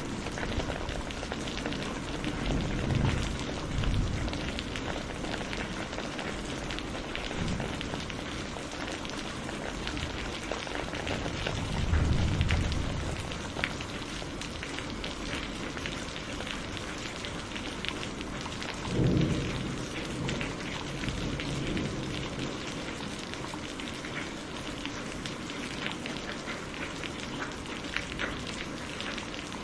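Steady rain falling, with thunder rumbling low three times: around 3 seconds in, around 12 seconds in, and a shorter roll around 19 seconds in.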